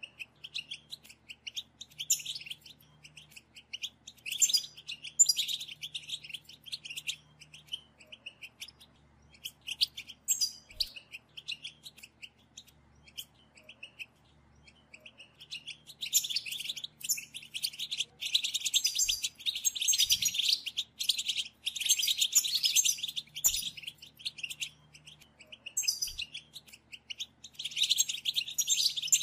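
European goldfinch song: quick, twittering, chirpy phrases, broken by pauses in the first half, then running on almost without a break during the second half.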